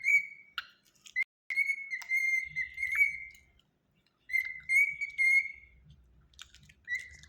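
Cockatiel whistling a short tune: clear, high whistled notes in three phrases with brief pauses between them, and one short note near the end.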